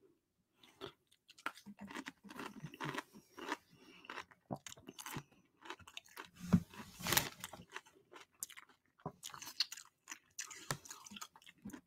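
A person chewing a mouthful of buffalo chicken cheese dip close to the microphone, with many small irregular wet mouth clicks and chewing noises, loudest a little past halfway.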